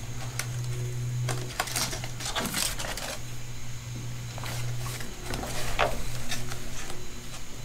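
Foam weatherstrip gasket tape being unrolled and pressed along a pickup's bed rail: irregular rustling and crackling handling noises with a few light taps, heaviest about two seconds in and again near six seconds. A steady low hum sits underneath.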